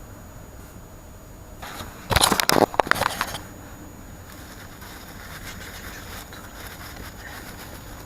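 A brief clatter of hard objects knocking and scraping together about two seconds in, lasting a little over a second.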